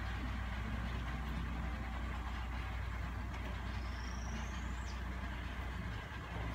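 A steady low mechanical hum, like an engine or machine running. A faint high whistle rises slowly for about a second in the middle, then drops off.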